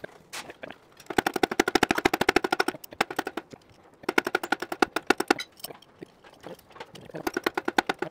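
Hand ratchet wrench clicking in three quick runs of about a second and a half each, with short pauses between them.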